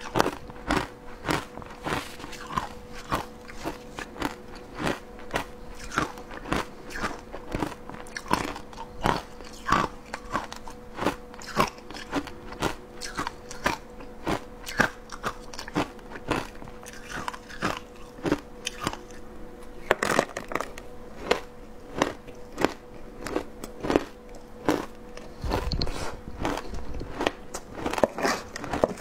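Close-miked crunching and chewing of shaved ice: a steady run of crisp crunches, about one or two a second.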